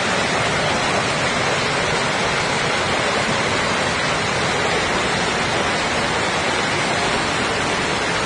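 Floodwater rushing in a torrent down a street, a loud, steady rush of water that does not let up.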